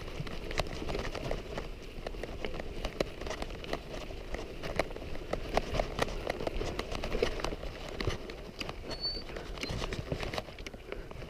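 Footsteps crunching on dry, stony ground: a run of irregular crunches and clicks over a low rumble, with one faint high chirp about nine seconds in.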